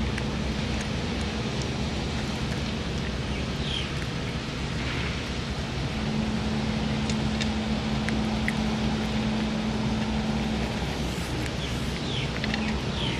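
A stray cat chewing wet cat food from a steel dish, with scattered small clicks, over a steady outdoor rumble and hiss. A low steady hum comes in for a few seconds in the middle.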